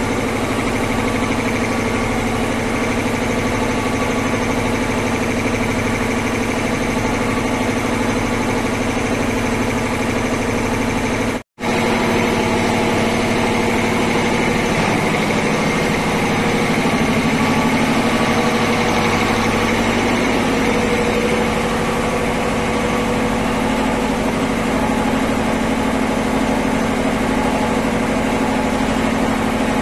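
Reciprocating piston air compressor, a V-twin unit belt-driven by an electric motor, running steadily with a constant mechanical hum. The sound cuts out for an instant about a third of the way in, then carries on unchanged.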